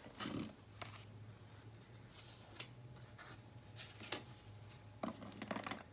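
Faint handling of oracle cards, with soft scrapes and light taps scattered through as one card is put aside and the next picked up, over a low steady hum.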